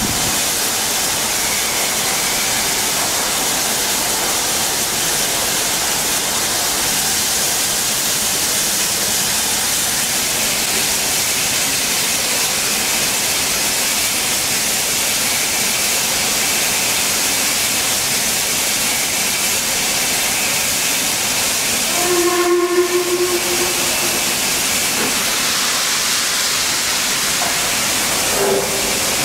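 LMS Class 8F 2-8-0 steam locomotive standing with steam hissing steadily from around its cylinders. Some twenty-two seconds in, a low whistle sounds once for about a second and a half, and a short toot follows near the end.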